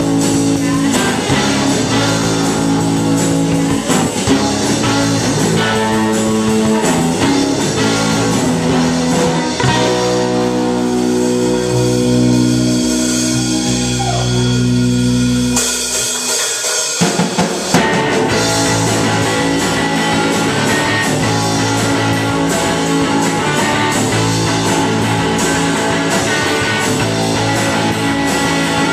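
Live rock band playing electric guitar and drum kit. About ten seconds in the band holds a sustained chord for several seconds; it breaks off around sixteen seconds, and the full band comes back in a couple of seconds later, between songs.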